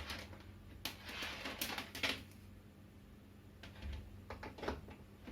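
Scattered light clicks and a short rustle, from wires and test-lamp leads being handled on a workbench, over a faint steady low hum.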